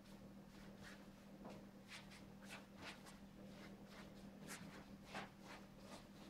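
Faint paint strokes on canvas: a run of short, irregular swishes and scrapes as paint is worked onto the lower part of a large canvas, over a steady low hum.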